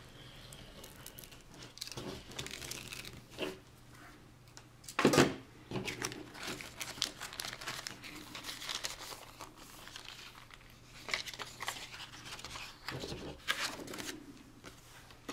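Paper envelope and clear plastic bag being handled and opened, crinkling and rustling as a decal sheet is pulled out, with a few louder rustles, the loudest about five seconds in.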